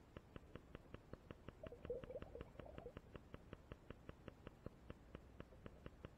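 Faint, even ticking, about five or six ticks a second, with a short crackling burst about two seconds in.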